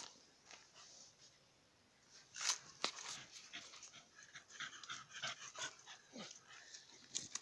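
A dog panting and sniffing amid rustling leaves and undergrowth, with two sharp cracks about two and a half seconds in.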